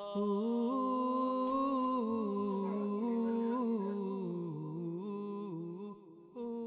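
A solo voice singing a nasheed slowly and without instruments, the melody gliding in long held notes; it fades briefly about six seconds in.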